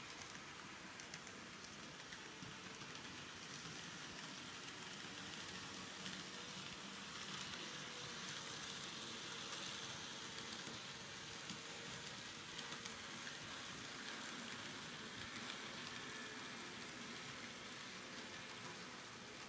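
Faint steady rolling hiss of a Kato N scale freight train running on Unitrack, with a faint motor hum, swelling slightly in the middle as the train passes closest.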